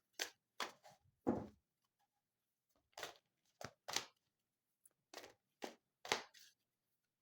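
Tarot cards being handled: about a dozen short, faint rustles and light taps with quiet gaps between them.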